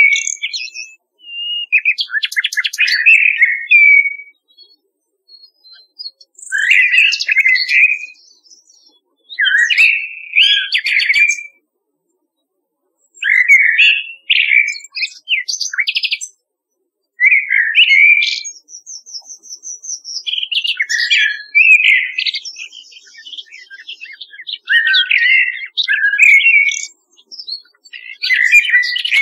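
Common nightingale and Eurasian blackbird singing: short, varied whistled phrases with brief pauses between them, including a rapid run of repeated clicking notes and a high trill.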